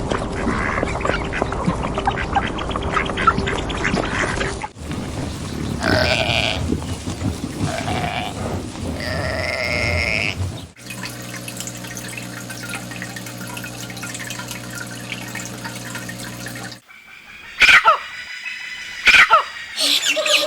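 A string of separate animal recordings joined by abrupt cuts, with several short animal calls and, in the middle, a steady humming stretch.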